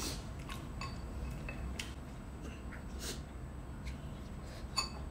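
Quiet eating at a table: scattered small clicks and taps of chopsticks and spoons on ceramic bowls, with a sharper ringing clink near the end.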